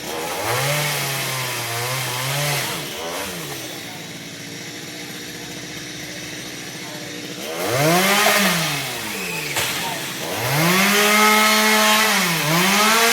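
Two-stroke Stihl MS 382 chainsaw running. It is revved up in repeated rises and falls of pitch, with a few seconds of lower, steadier running between the bursts.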